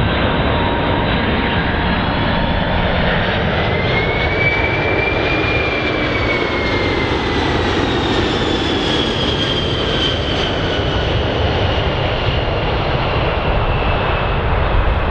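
Jet airliner passing on landing approach: a steady, loud engine rumble and rush, with a high engine whine that drops in pitch as the aircraft goes by.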